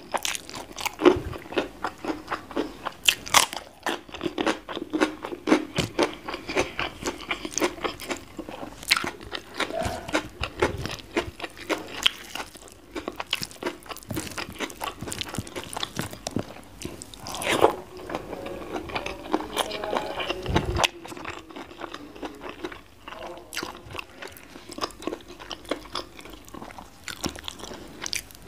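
Close-miked eating sounds: crunchy bites and wet, sticky chewing of a smashed fried omelette with chili sambal and rice, eaten by hand, in irregular clicks and crackles with a few louder crunches.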